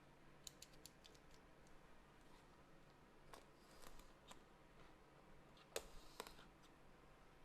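Faint scattered clicks and light taps from cardboard packaging being handled and opened, with the sharpest tap a little after the middle.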